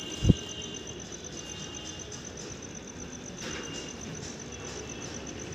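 A thin, high-pitched chirp pulsing several times a second over low steady background noise, with one dull thump about a third of a second in.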